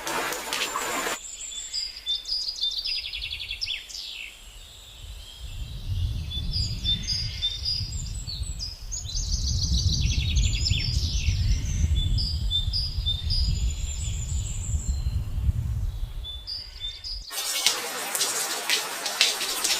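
Forest birds calling, with short chirps and rapid trills, and a low rumble under them for much of the time. Rain hiss fills the first second and comes back about three seconds before the end.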